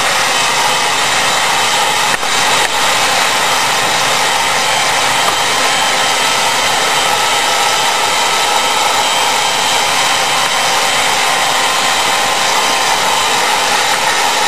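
Electric heat gun running steadily, its fan blowing a constant rush of hot air with a faint motor whine, heating a cut PVC pipe blade to soften it for bending.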